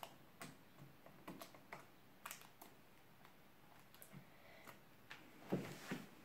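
Faint, scattered clicks and crinkles of small toy packaging, a paper or plastic wrapper and a tiny cardboard box, being picked and torn open by hand, with a soft thump near the end.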